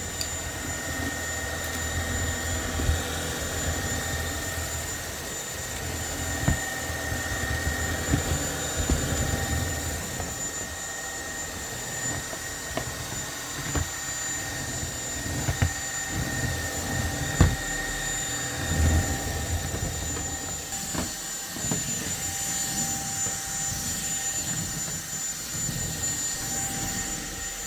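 Cordless stick vacuum cleaner running with a steady high motor whine, punctuated by a few sharp knocks.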